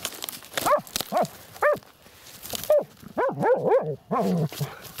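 Hunting laika dogs yelping and barking excitedly, about nine short calls that each rise and fall in pitch, with a quick run of them past the middle, as they work a burrow where they scent game.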